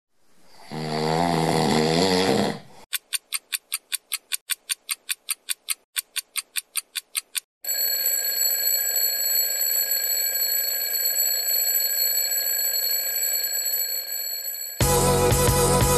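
A mechanical twin-bell alarm clock ticking about four times a second, then its bells ringing steadily for about seven seconds before music cuts in. Before the ticking, a wavering pitched sound swells up for a couple of seconds.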